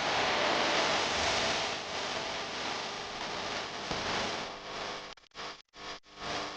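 Steady hiss of background noise, like a fan or air conditioner. About five seconds in it breaks into short choppy pieces, with abrupt drop-outs, and then stops.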